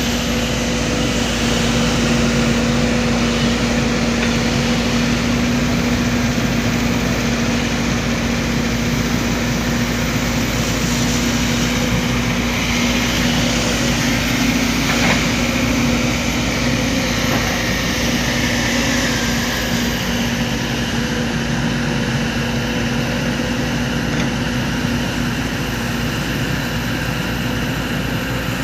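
Heavy diesel engine of construction equipment running steadily at an even speed, with a constant low hum.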